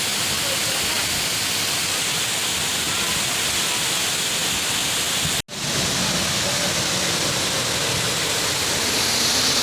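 Steady rush of falling water from a waterfall, broken by a momentary dropout to silence about halfway through before it resumes.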